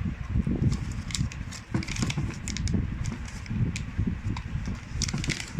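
Hands handling a sunglasses case and microfiber cloth: rustling with many small clicks and taps, over a steady low rumble.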